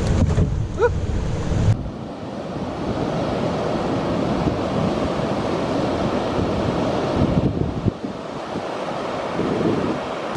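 Steady rushing of water over falls and rapids. In the first couple of seconds wind rumbles on the microphone.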